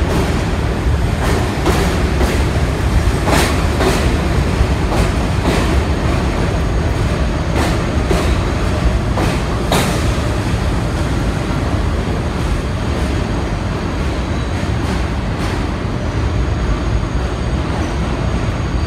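R68A subway train running through the station, its wheels clacking over rail joints with scattered sharp clicks. The clicks die out about halfway through, leaving a steady rumble as the last car passes and the train pulls away.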